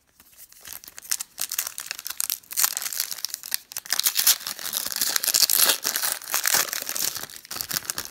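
Foil trading-card pack wrapper crinkling as it is handled and torn open by hand: a dense run of crackling that starts about half a second in and tails off near the end.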